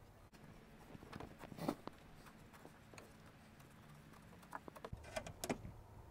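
Faint, scattered metallic clicks and taps as steel brake hard lines and their double flare nuts are handled and worked into the brake proportioning valve by hand. There are a couple of clicks about a second in and a quick cluster near the end.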